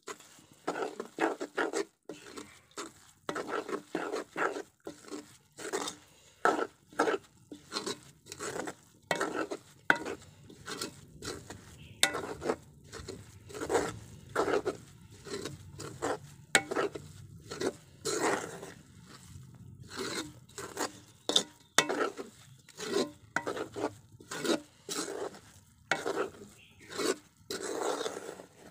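A spoon scraping and stirring a crumbly walithalapa mixture of rice flour, sugar and coconut around a metal pan. It comes in repeated strokes, about one or two a second.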